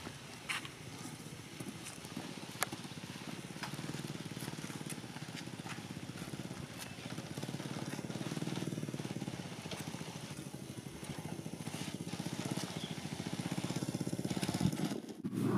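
A small engine running steadily, a low pulsing hum, with a few sharp clicks in the first few seconds.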